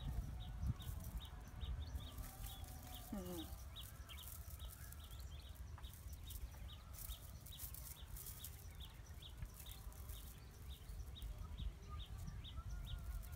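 Faint outdoor ambience: a short high chirp repeating evenly about three times a second over a low rumble, with a single short falling call about three seconds in.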